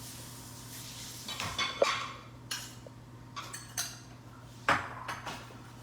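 Kitchen utensils clinking and scraping against cookware in a handful of short clatters, over a faint steady hum.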